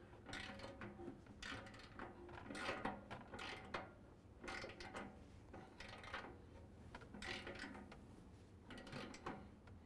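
Hand ratchet wrench with a 19 mm socket clicking in quick runs on its back-strokes, with short pauses between runs, as bumper bracket bolts are tightened down.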